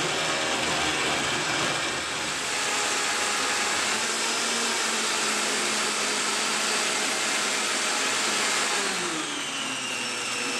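Vitamix high-speed blender motor running, blending tomatoes and zucchini into a smooth purée. The motor pitch rises as it spins up at the start and falls near the end as the speed is turned down.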